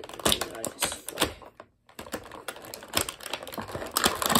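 Clear plastic blister tray crackling and clicking as an action figure is worked out of it by hand, in irregular sharp clicks with a short pause a little under two seconds in.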